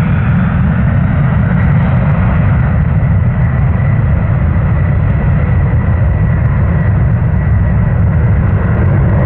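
McDonnell Douglas MD-11F trijet's engines at takeoff power: a loud, steady jet rumble with a thin high whine above it.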